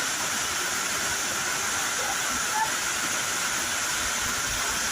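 Steady rain falling, an even hiss with no let-up. A brief faint tone sounds once, just past halfway.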